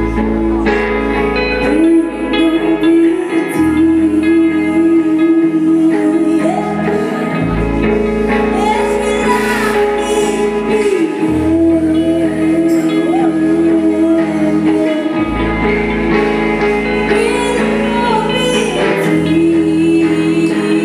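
Live rock band playing: a sung lead vocal over electric guitar chords and a bass line that changes note about every four seconds.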